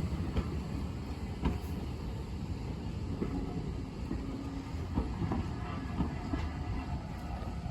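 Heritage railway train running along the track: a steady low rumble with occasional short clicks from the wheels and rails.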